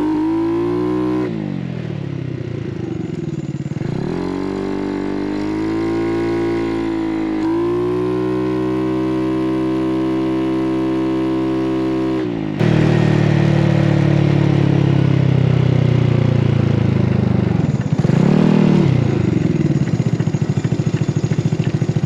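GY6 171cc single-cylinder four-stroke scooter engine with electronic fuel injection, pulling under throttle: the revs drop off about a second in, climb and level off, climb again and hold steady, then dip and pick back up near the end. It runs smoothly without stumbling, which the rider calls "so dialed."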